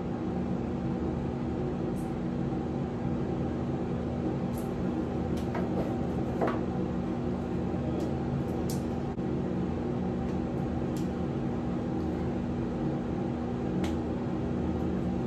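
A steady mechanical hum, with a few faint clicks and taps scattered through it.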